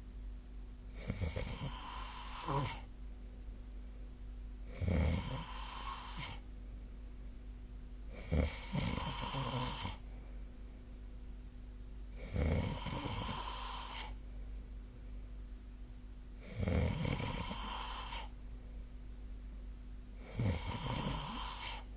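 A sleeping person snoring: six snores at even intervals of about four seconds, each lasting about a second.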